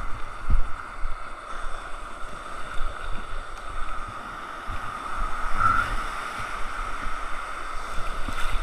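Breaking surf and water washing around a kayak as it is launched through the waves, with wind rumbling on the microphone.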